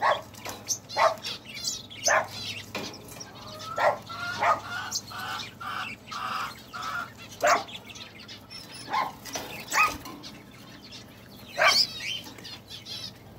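Small caged aviary birds calling: scattered short, sharp chirps, with a run of about six evenly spaced notes, two a second, a few seconds in.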